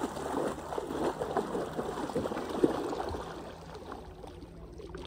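Legs wading through shallow lake water, a busy run of splashing and sloshing that eases off about three and a half seconds in as the wader gets deeper.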